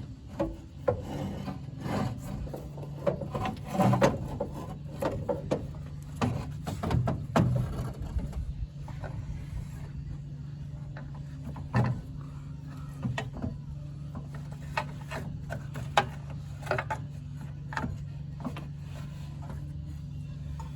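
Scattered knocks, clunks and scraping of a radiator and its hoses being worked into place in a truck's engine bay, busiest in the first several seconds and sparser after, over a steady low hum.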